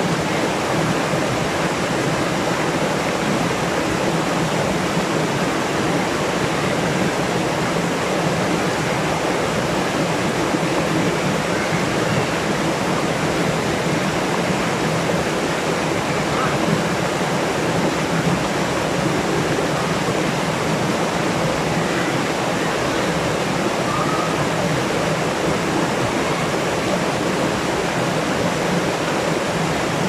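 Small waterfall cascade pouring over boulders in a rocky jungle stream: a steady, unbroken rush of white water.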